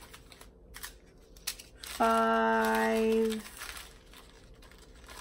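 Small plastic bags of diamond-painting drills crinkling and ticking as they are picked up and set down. About two seconds in, a woman's voice holds one long, level 'hmm' for over a second.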